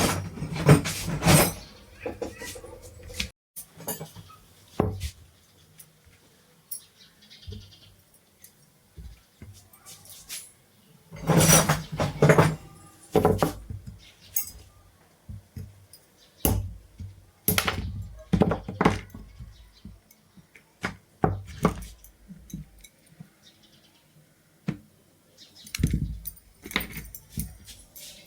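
Irregular knocks, taps and clatter of hand tools and metal parts being handled and struck, in short clusters with quieter gaps between.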